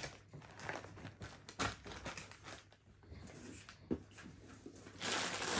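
Clothes rustling as they are arranged and pressed down into a packed suitcase, with soft handling noises and a sharp click a little before the end. From about five seconds in the rustling gets louder.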